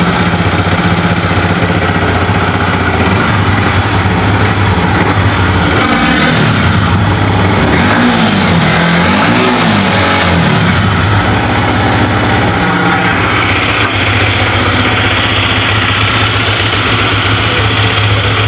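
Yamaha MT-15's 155 cc single-cylinder engine idling steadily through its exhaust, with a few quick throttle blips in the middle, the pitch rising and falling with each before it settles back to idle.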